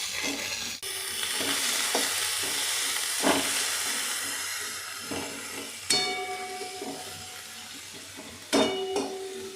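Chopped onion, capsicum and carrot sizzling in hot oil in a kadai, stirred with a spatula that scrapes and knocks against the pan now and then. The sizzle fades gradually.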